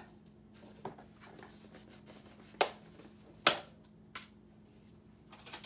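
A few separate clicks and knocks of hard kitchen items being handled on a counter, about one a second, the loudest about three and a half seconds in, over a faint steady low hum.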